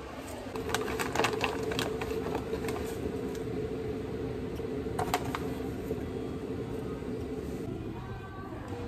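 A steady appliance hum with a few light clicks and rustles while ground coffee is tipped from its bag into a glass French press. The hum fades out near the end.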